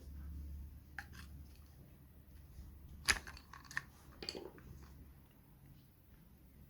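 A few sharp clicks and knocks of small parts and tools being handled while a car window regulator is taken apart, the loudest about three seconds in, over a low hum at the start.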